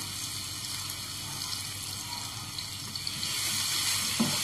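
Pounded red onion and garlic frying in hot oil in a non-stick pan, a steady sizzle that grows a little louder about three seconds in.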